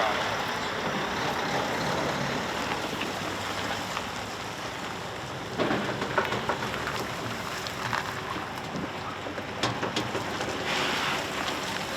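Loaded semi truck running while it works through a tight turn: a steady engine and road-noise haze, with a sudden surge of noise about halfway through.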